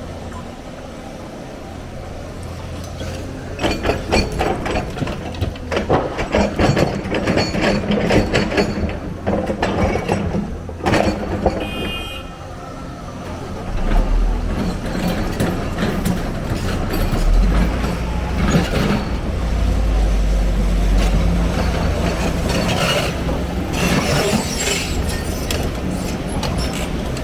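Heavy excavator working: diesel engine running with a steady low rumble, rising under load, with long stretches of clattering and knocking as material is handled.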